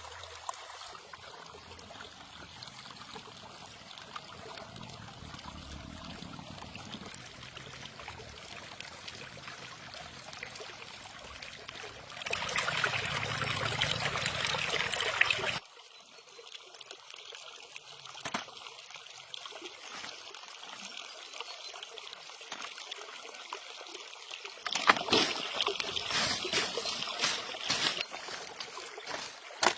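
Water trickling and splashing, with two louder spells of rushing water of about three seconds each, one about a third of the way in and one near the end.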